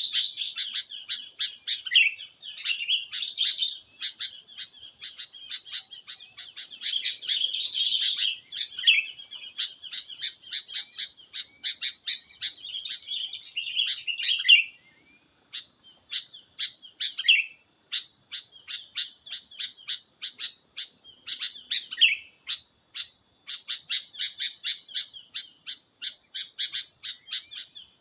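Birds chirping: rapid sharp chirps about three a second, broken by a few longer falling calls, over a steady high-pitched tone.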